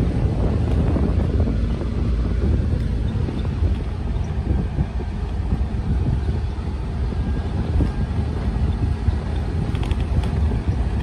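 A car driving on a rough gravel road: a steady low rumble from the engine and the tyres on the stones, with wind buffeting the microphone.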